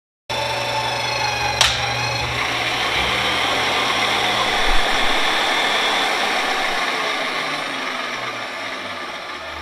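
Magnetic drill press running, an annular cutter boring a bolt hole through a steel truck frame rail: a steady whining motor with a sharp click about a second and a half in, gradually getting quieter over the last few seconds.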